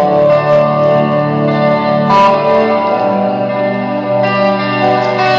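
Guitar music played through a new pair of Wet Sounds REV 410 marine tower speakers on Syn-4 amplifiers, set at about half volume while the speakers are broken in. The music echoes off the warehouse's concrete block walls.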